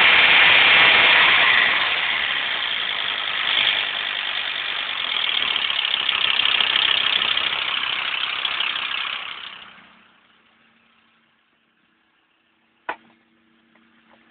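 Volkswagen LT35 van engine running loud and rattly, a dense clattering noise that fades away about nine to ten seconds in. Two sharp clicks follow near the end.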